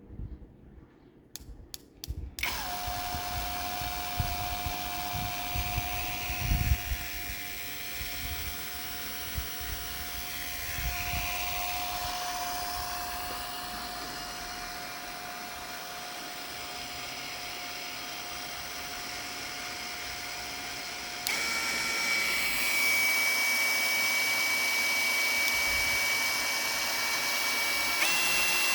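Cordless drill driving an improvised outboard propeller: a few clicks, then the motor starts about two seconds in and runs with a steady whine. About 21 seconds in it jumps to a louder, higher whine, and rises again just before the end.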